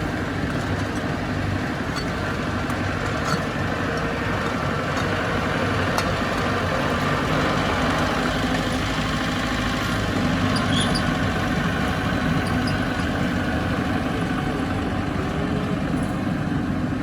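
Heavy diesel construction machinery running steadily, with a few sharp clicks and knocks.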